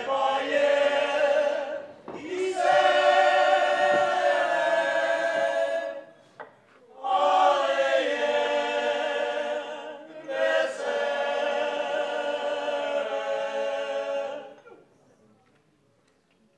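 Men's choir singing unaccompanied in four long phrases with short breaths between them, stopping a little before the end.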